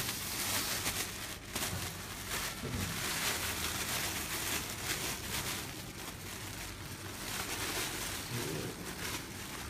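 Packaging rustling and scraping, a run of irregular crackles and rubs, as a heavy statue base is worked out of its two-layer foam packing.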